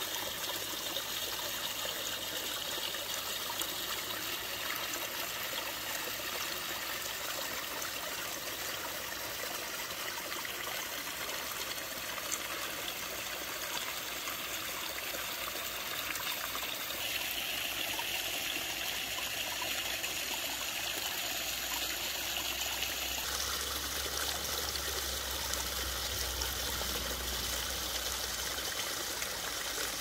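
Irrigation ditch water flowing into a flooded rice paddy, a steady rushing and bubbling of water.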